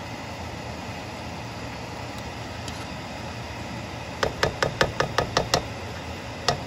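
A spatula knocking against a nonstick wok while stir-frying cabbage: a quick run of about eight sharp knocks a little over four seconds in, and one more near the end, over a steady background hiss.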